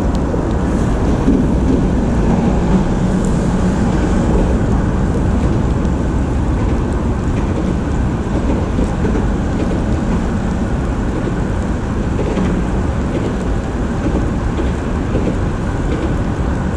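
Steady rumbling noise of wind buffeting the camera microphone, mixed with falling rain.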